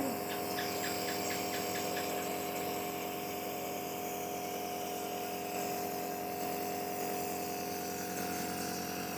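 Small electric nebulizer compressor running with a steady, even hum.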